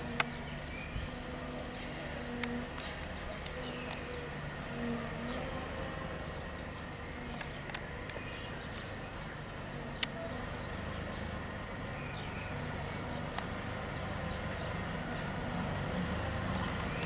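7¼ inch gauge miniature diesel locomotive running as it approaches along the track, its engine hum growing slowly louder. There are a few sharp clicks.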